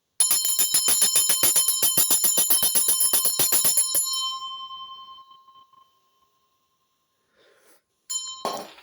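A small metal hand bell shaken rapidly, its clapper striking about seven times a second for about four seconds, then the bright ring fading away. Near the end it rings briefly once more, followed by a knock.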